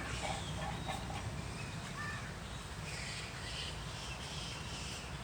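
Birds calling outdoors in short notes, with a quick run of calls in the first second and higher chirps later, over a steady low rumble.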